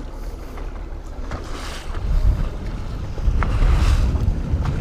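Wind buffeting the microphone over open water, with waves washing against a small boat's hull; the low rumble of the wind grows stronger about two seconds in.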